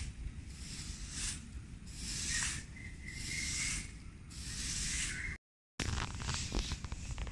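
Long-handled yard broom sweeping dry leaves across sandy bare ground in rhythmic swishes, about one a second. The sound cuts out for a moment a little past the middle, then the sweeping goes on with light crackles from the leaves.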